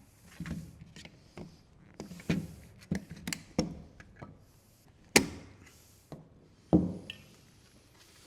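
Hard plastic parts of a car climate control panel clicking and knocking as they are handled and pried at: a dozen or so irregular knocks, the two loudest about five and about seven seconds in.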